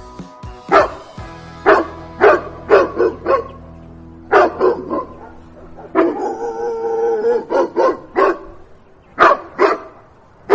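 Puppy barking and yipping in quick runs of short, sharp barks, with one longer drawn-out cry about six seconds in. Background music plays underneath.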